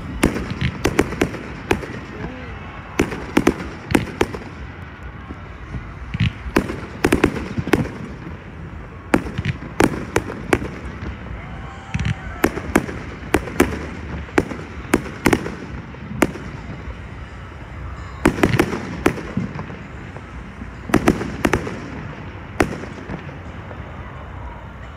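Aerial fireworks shells bursting overhead: sharp bangs, often several in quick succession, with short gaps between volleys. The bangs stop a couple of seconds before the end.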